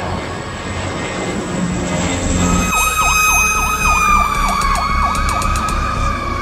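Fire engine siren: about two and a half seconds in it starts with a fast warbling yelp, then settles into a long wail that slowly falls in pitch, over a low engine rumble.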